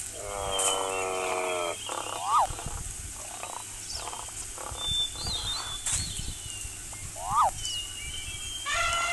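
A string of animal calls: one drawn-out pitched call lasting about a second and a half at the start, then short quick rising-and-falling chirps about two seconds in and again near the end.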